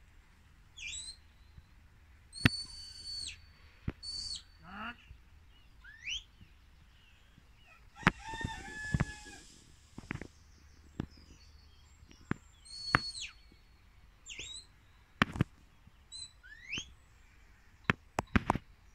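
Shepherd's whistle commands to a working sheepdog: a string of short, shrill whistles, some held on one note and some sliding upward, with a few sharp clicks between them.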